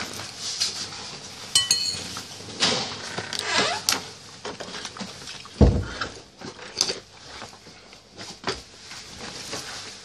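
Close-up eating sounds: soup slurped off a metal spoon and chewed, with a few sharp clinks of the spoon against the dish and one loud low thump a little past halfway.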